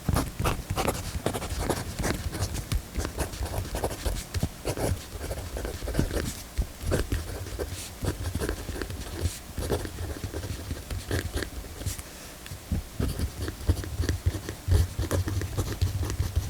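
0.7 mm mechanical pencil writing on paper: a long run of short, irregular scratchy strokes with low knocks underneath.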